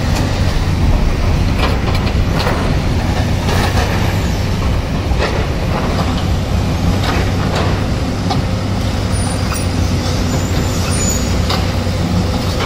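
Heavy diesel engines of working excavators and a passing truck running steadily, with irregular sharp knocks and clatter from rock being dug and dropped.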